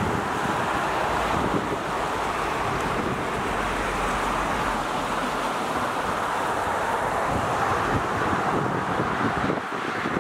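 Steady rush of a stream tumbling over rocks, an even hiss of water.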